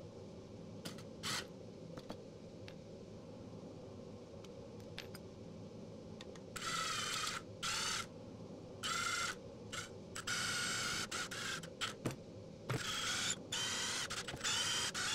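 Cordless driver driving screws in several short runs, each from half a second to about a second and a half, starting about halfway through. Before them there are only a few faint clicks of handling.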